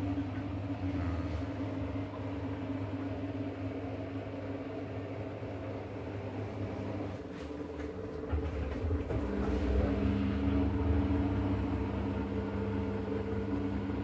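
Samsung front-loading washing machine running a short rinse cycle, a steady motor hum with the drum rumbling. About eight seconds in the rumble deepens and a new steady tone joins, a little louder, as the motor's speed changes.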